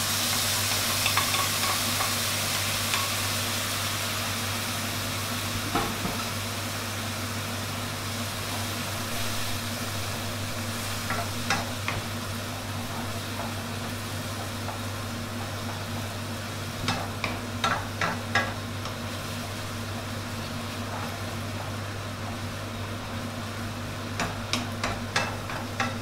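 Pad thai sauce hitting a hot wok of fresh rice noodles with a loud sizzle, easing within a few seconds into steady sizzling as the sauce cooks down into the noodles. A wooden spatula stirs and scrapes against the pan, with short runs of clicks several times.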